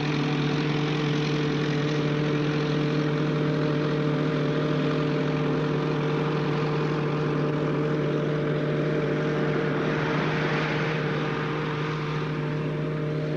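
Tank engine running steadily with an unchanging low hum, easing slightly near the end.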